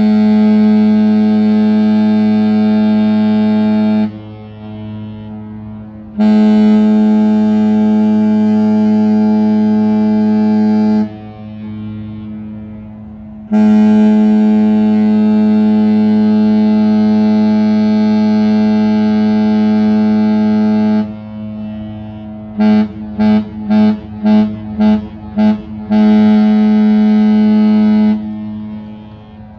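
Norwegian Breakaway cruise ship's horn sounding at the ship's departure: three long blasts at one steady low pitch, then six quick short toots and a final long blast.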